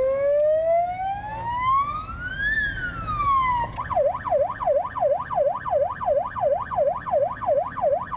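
Police car siren: a slow wail that climbs for about two and a half seconds and drops back, then switches to a fast yelp, about three rises and falls a second.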